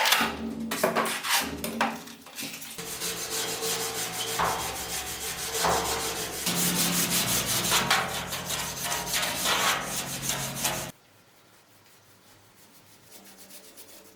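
Wood being sanded: a dense, rasping rub of abrasive on wood that stops abruptly about eleven seconds in.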